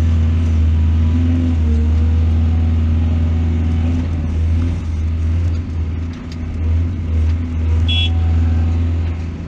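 Heavy diesel engine of a mining excavator running with a deep, steady rumble, its load easing and picking up a few times past the middle. A short high chirp sounds about eight seconds in.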